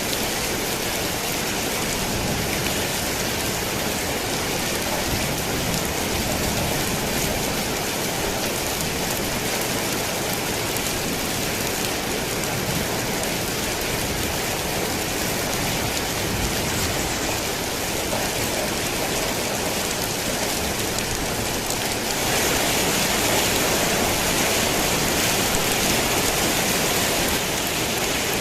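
Steady, dense rain falling on a thick tin roof. It gets a little louder and brighter for several seconds late on.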